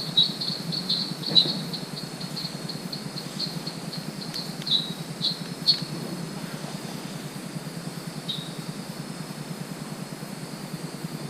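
Night chorus of small animals, frogs and insects, calling: repeated short high chirps come rapidly at first, then thin out to scattered calls, some dropping slightly in pitch, over a steady low hum.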